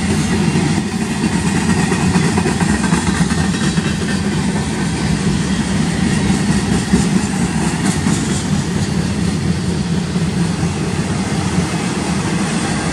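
Freight cars, covered hoppers and then autoracks, rolling past at steady speed: a continuous loud rumble of steel wheels on rail.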